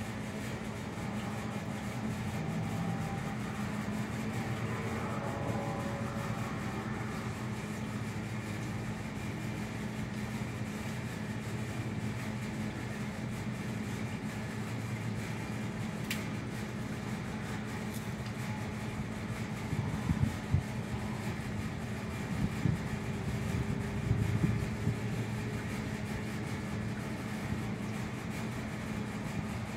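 Steady low mechanical hum with a constant pitch, of the fan or air-conditioning kind. A few brief low thumps break in about two-thirds of the way through.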